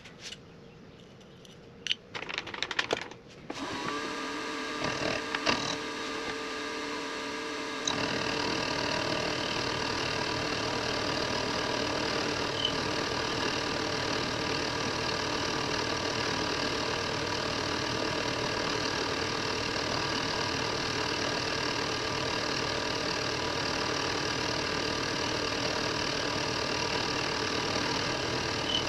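A few short knocks as the workpiece is handled, then the Precision Matthews PM-25MV benchtop milling machine's spindle motor starts about four seconds in and runs with a steady hum, stepping up louder about eight seconds in and holding steady after that.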